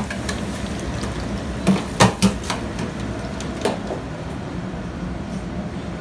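Busy commercial kitchen: a steady hiss from deep fryers bubbling with wings and fries and the exhaust hood running. A quick cluster of sharp knocks comes about two seconds in, with one more near four seconds.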